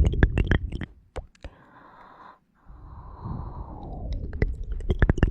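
Close-miked ASMR mouth sounds: a swelling breathy rush followed by a quick run of sharp clicks, heard twice.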